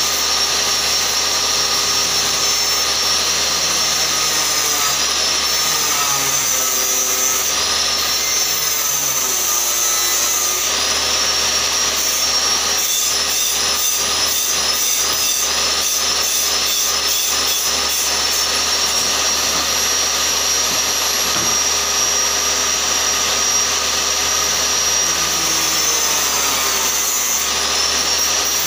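Woodworking power saw running off-camera, cutting wood: a steady high whine that dips in pitch several times as the blade takes the load, with a stretch of rapid pulsing around the middle.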